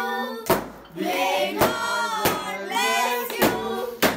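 Several voices singing, with five sharp handclaps at irregular intervals.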